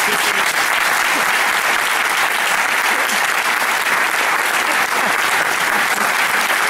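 An audience clapping in a steady, dense round of applause that holds at an even level throughout.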